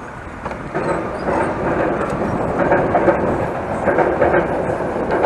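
A train passing over a railway bridge, the sound swelling about a second in and then holding steady.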